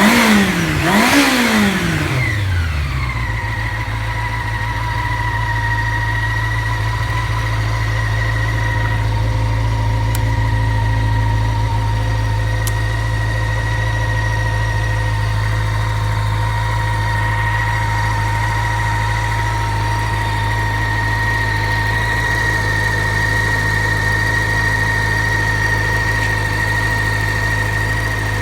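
Honda CB400 Super Four (NC31) inline-four engine revved briefly near the start, its revs falling back by about three seconds in, then idling steadily. The running is quite quiet, with no abnormal noises, after long storage.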